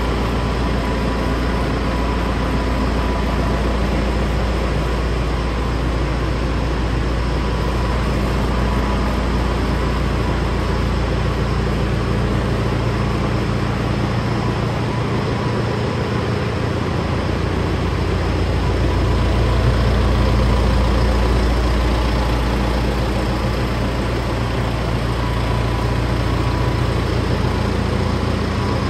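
John Deere 6430 tractor's diesel engine idling steadily, an even low hum with no change in speed.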